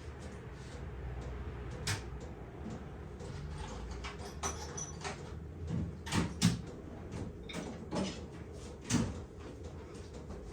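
A hammer tapping on a seized cross vice part: about six separate sharp knocks, the loudest a quick pair just past the middle, aimed at freeing a part that may be held on a taper.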